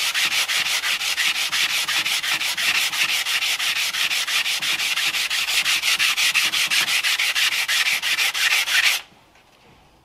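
Edge of an acrylic sheet being wet-sanded by hand on water-wetted P400 wet-and-dry abrasive paper on a flat board: a fast, even back-and-forth scratching at about five or six strokes a second. It stops abruptly about nine seconds in as the piece is lifted off the paper.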